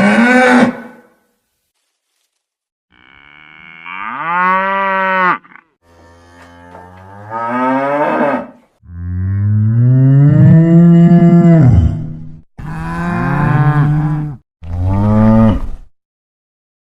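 Cattle mooing: a series of about five separate moos, each one to three and a half seconds long, with a low pitch that rises and falls, divided by short silent gaps.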